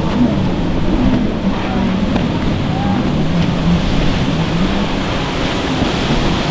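Stand-up jet ski engines running, their pitch rising and falling as the riders work the throttle through the waves, over the steady wash of breaking surf.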